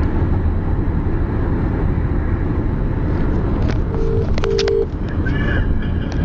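Low, steady rumble inside a car. About four seconds in, a British telephone ringing tone sounds once as a double 'ring-ring', meaning the outgoing call is ringing and not yet answered, with a few light clicks around it.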